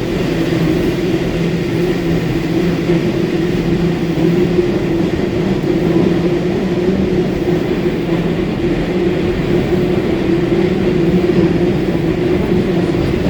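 Sendai Subway Namboku Line 1000N-series train heard from inside the car while running at speed: a steady rumble of wheels on rail with a constant low hum.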